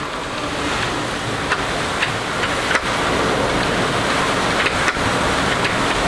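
Hurricane wind and rain blowing hard and steadily against the house, with a few sharp knocks from the loose wooden storm shutters.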